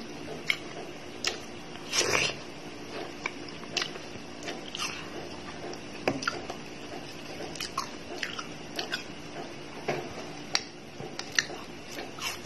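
A person eating watermelon close to the microphone: wet biting, chewing and mouth smacks, heard as irregular short clicks every half second to a second.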